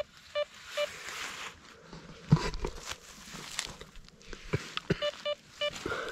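Drotek MTXE metal detector giving short electronic beeps in two runs of three quick beeps, one at the start and one about five seconds in, as a handful of soil is passed over its coil: the signal of a small metal target in the dirt. Between the runs come rustling and crunching of dry leaves and soil, with one sharp knock about two seconds in.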